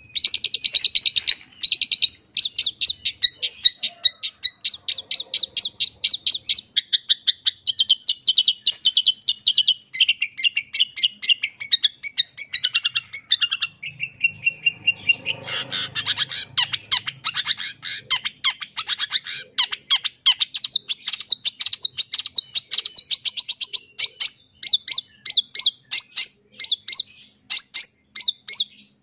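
Long-tailed shrike (cendet) singing a fast, nearly unbroken run of high chattering notes, its song full of mimicked phrases of other birds.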